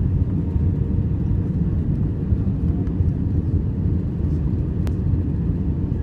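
Steady low rumble of an Airbus A320's engines and airflow heard from inside the passenger cabin on approach to landing, with a single faint click about five seconds in.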